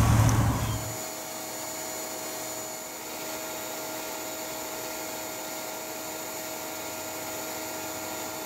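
Loud, close buzzing of a mass of honeybees with some handling noise, which cuts off about a second in. After that comes a steady machine hum with a few constant tones.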